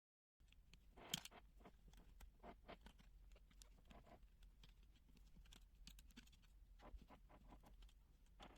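Faint scattered clicks and taps, like small objects being handled, over a low steady hum; the sharpest click comes about a second in.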